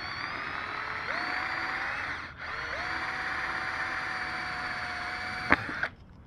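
Power drill boring a hole through the tow hook cover in a car's front bumper: the motor whines up to speed, pauses briefly, then spins up again and runs steadily. A sharp click near the end, then the drill stops.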